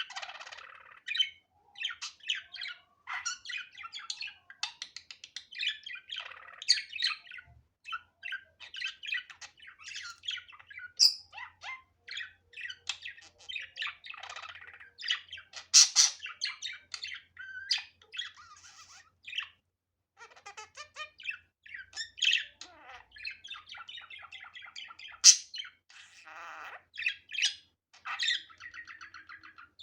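Budgerigar chattering: a continuous warble of rapid chirps, clicks and trills with occasional sharper squawks, pausing briefly about two-thirds of the way in.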